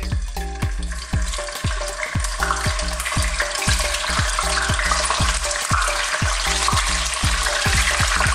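Chicken drumsticks frying in hot corn oil in a wok, the sizzle swelling and getting brighter as more pieces go into the oil. Background music with a steady beat plays underneath.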